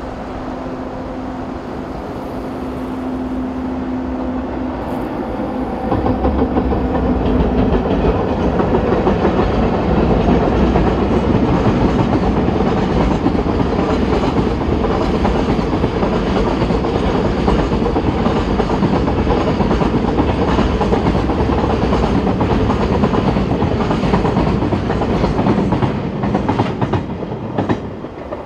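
EF64 1000-series electric locomotive hauling a freight train past: a steady hum builds as it approaches. About six seconds in, a loud rumble and clatter of wheels over the rail joints sets in and runs for some twenty seconds, dropping away near the end.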